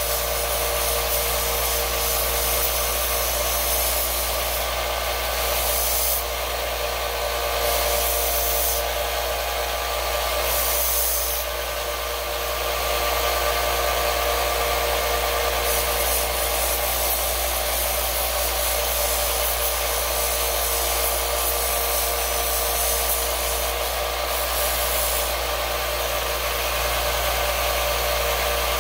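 Small bench belt sander running with an 80-grit belt while a tool is held lightly against it: a steady grinding hiss over the motor's hum, easing and picking up now and then as the pressure changes.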